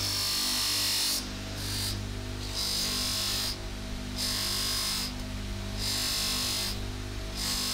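Bench-mounted spinning wheel running with a steady motor hum. A threaded steel bolt is pressed against it in repeated passes, each contact giving a hiss that lasts under a second, about six times.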